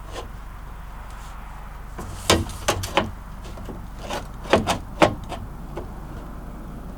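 Sheet-metal patch panel being bent and handled: sharp knocks in two quick clusters of about three, a second or so apart, over a low steady hum.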